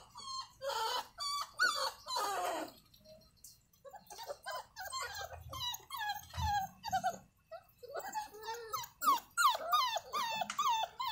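A litter of young puppies whining and yipping: many short, high cries that bend up and down, several pups at once, with a brief lull about three seconds in.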